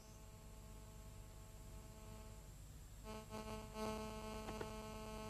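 Faint low hum; about three seconds in, a quiet steady held note with overtones comes in and holds.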